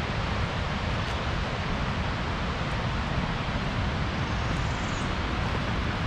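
Steady, even rushing noise of the distant waterfall and river in the gorge, with wind buffeting the microphone in the low end.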